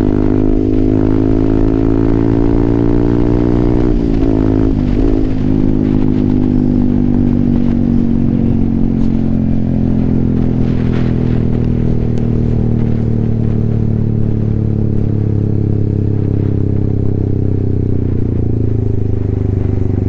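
Yamaha R15M's single-cylinder engine running through an SC Project aftermarket exhaust while riding. The note climbs slightly, breaks with a gear change about four seconds in, then slowly falls as the bike eases off.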